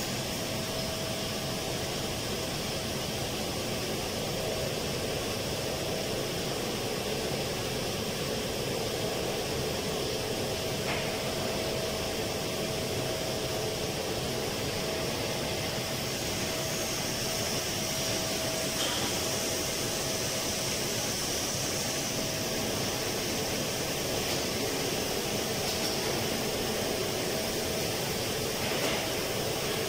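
Steady rushing hum of air-conditioning plant machinery, with a constant mid-pitched tone running through it and a couple of faint clicks.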